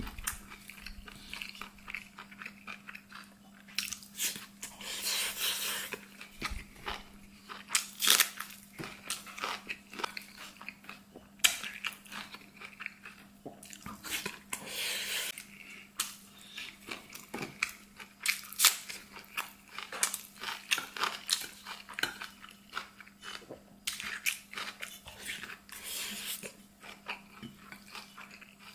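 Close-miked eating: a person chewing and crunching food with many irregular short crackly bites and mouth smacks. A faint steady hum runs underneath.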